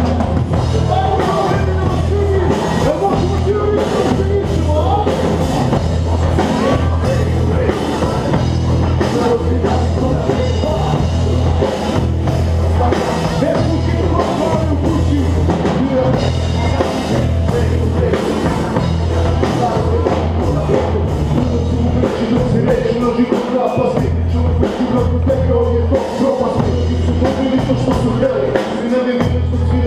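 Live rock band playing a rap-rock song: drum kit, electric guitars and bass guitar, with a voice on a microphone over it.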